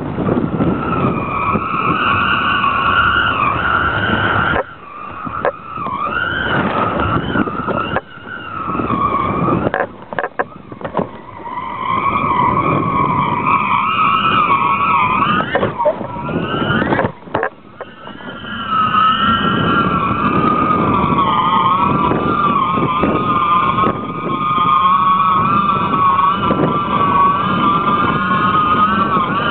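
Wind rushing over a camera carried up a power-kite line, with a wavering, whistle-like hum in several tones that slides up and down like a siren: the stunt-kite rig singing in the wind. The wind noise drops off briefly a few times.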